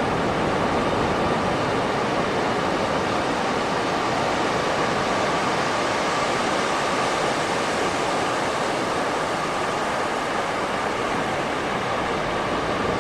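Beach surf: a steady, even rush of breaking waves with no distinct swells.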